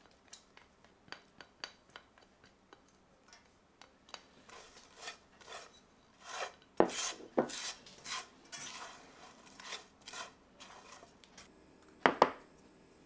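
Light taps as chopped chilli is tipped from a small bowl into a black metal pan. A spatula then scrapes and stirs the dry green beans, breadcrumbs and chilli around the pan, knocking against it twice about seven seconds in. Near the end a ceramic bowl is set down on a wooden table with two knocks.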